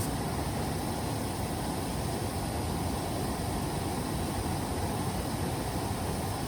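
Steady rushing of a mountain stream, an even, unbroken wash of water noise.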